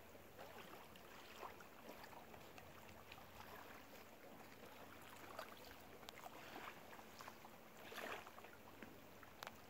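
Near silence: calm seawater lapping faintly at the shore, with scattered small ticks and a slight swell about eight seconds in.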